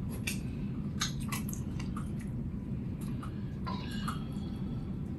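A utensil stirring simmering soup in a large stainless steel stockpot: wet squishing and sloshing with scattered light clicks and scrapes against the pot, over a steady low hum.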